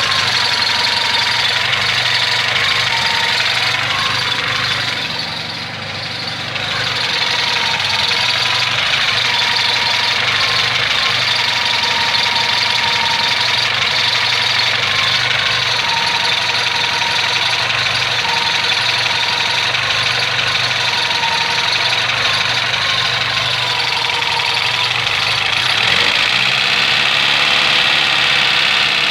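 Car engine idling with its alternator humming under electrical load, with the headlights and fog lights switched on. A steady tone that wavers slightly rides over the engine's rumble, and the loudness dips briefly about five seconds in.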